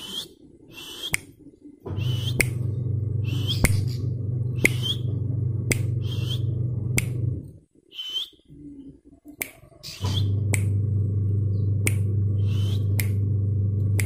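Caged ciblek sawah (a prinia) giving sharp, clicky chirps about once a second, each with a short high note. A steady low hum runs beneath most of it and stops for a few seconds in the middle.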